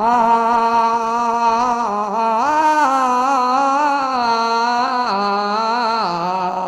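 A male folk singer's voice over a PA microphone, holding one long, drawn-out sung note as the slow opening of a saakhi. The note swells upward about two and a half seconds in and sinks back lower near the end.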